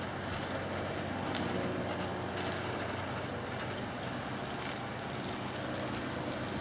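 Piper Lance II (PA-32RT-300) single-engine piston plane's six-cylinder Lycoming engine and propeller droning steadily at climb power after takeoff, heard from the ground at a distance.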